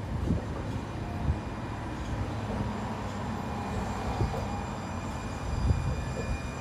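Siemens S700 light rail train approaching, a low rumble with a few short thumps. A thin, steady high whine comes in about halfway through.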